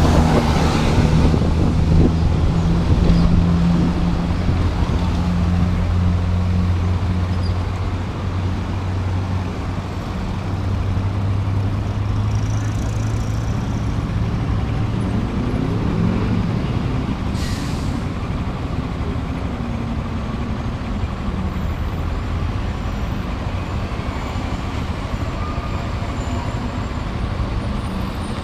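Motorcycle engine running at a steady low pitch amid street traffic, its tone fading into the general traffic noise about halfway through. A short sharp hiss comes about two-thirds of the way in.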